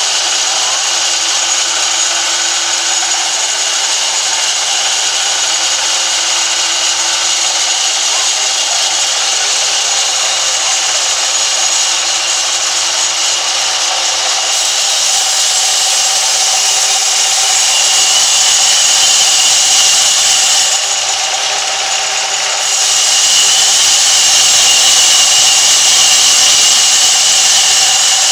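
Sawmill band saw running its blade through a thick timber, a steady hiss with a high whine. It grows louder about halfway through, dips briefly, then is louder again near the end.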